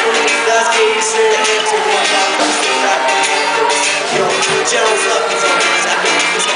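Live music from a performance on stage: a song played loudly and steadily by instruments, with little or no clear singing.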